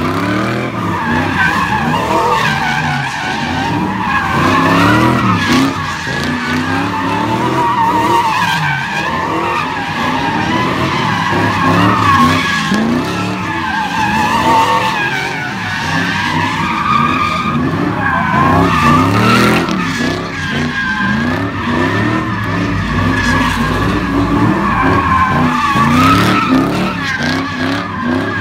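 Car tyres squealing without a break through burnouts and donuts, the squeal wavering up and down in pitch. Under it the engines rev up and down again and again.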